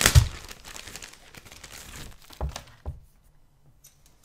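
Clear plastic bag of a plastic model kit crinkling as the sprues are pulled out of it, with a thump at the start and a couple of sharp knocks of plastic near the end.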